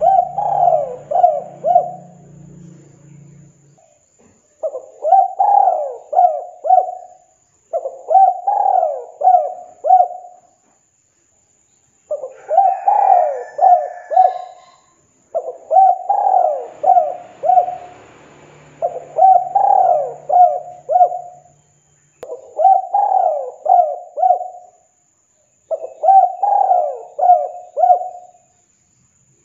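Spotted dove cooing: a phrase of four rolling coo notes repeated eight times, with a pause of about a second between phrases.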